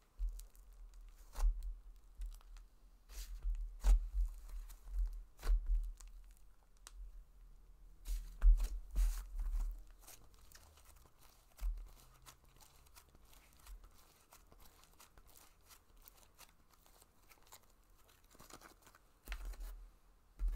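Hands playing with a clay-heavy butter slime on a table: soft sticky tearing and clicking as it is poked, pulled and pressed, with low thumps of hand on table. Busy in the first half, quieter for several seconds, then picking up again near the end.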